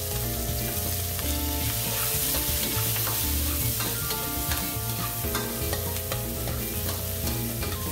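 Sliced onions sizzling in hot oil in a wok, stirred with a metal spatula that scrapes and taps against the pan in frequent small clicks.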